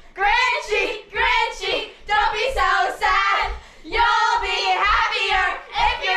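A group of girls singing a lively song together, in short phrases, with a soft low thump about twice a second keeping time.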